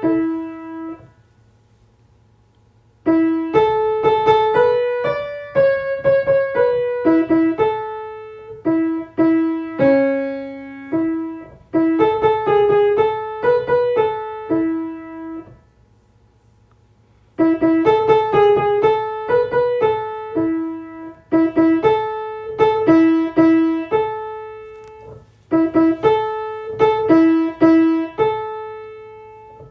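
Piano playing the opening phrase of a choral anthem, a melody line over repeated chords. It stops twice for a couple of seconds of silence and starts the same passage again.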